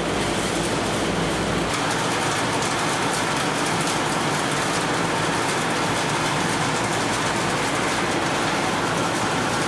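Machinery of a mechanised olive mill running: a steady, dense clatter and rush.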